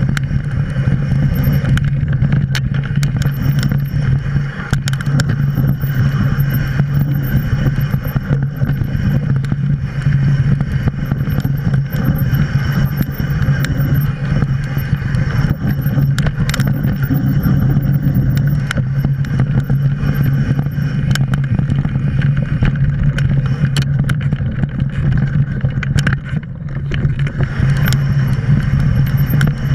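Mountain bike descending a rough dirt singletrack: a loud, steady low rumble with frequent sharp clicks and knocks from the bike rattling over rocks and ruts.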